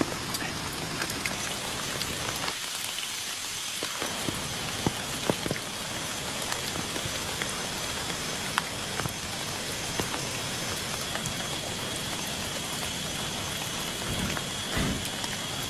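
Steady rain falling, with many single louder drops striking close by, and a couple of dull low knocks near the end.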